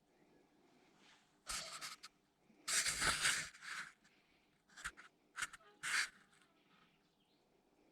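Short bursts of scraping and rustling handling noise with a few sharp clicks, several times over a few seconds: hands and tools working the spark plug out of a small engine.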